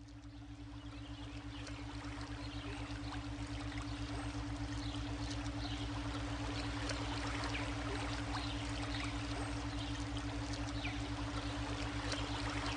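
Trickling, bubbling water over a steady low drone, fading in over the first couple of seconds.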